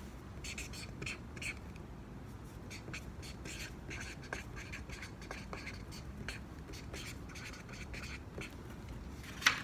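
Felt-tip marker writing on paper: a run of short, irregular scratching strokes as letters are drawn by hand, with one louder, sharper sound just before the end.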